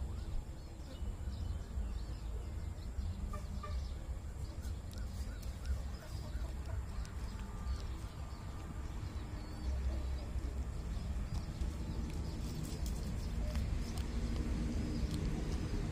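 Outdoor ambience: a low wind rumble on the microphone, with a bird calling a run of short repeated notes about four to six seconds in, and scattered faint clicks.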